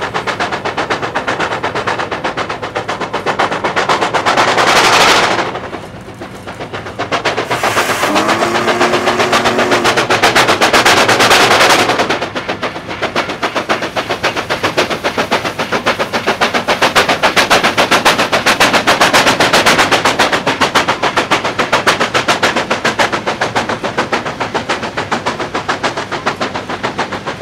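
Steam locomotive working hard up a grade: rapid, regular exhaust beats throughout, with two surges of steam hiss and a short low whistle about eight and a half seconds in.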